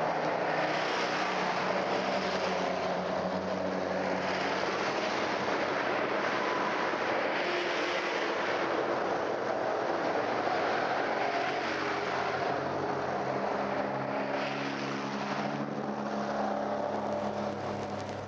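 Road traffic: motor vehicles passing one after another, engine hum and tyre noise swelling and ebbing every few seconds, dulled and hissy as an old vinyl sound-effects recording. The sound fades down near the end.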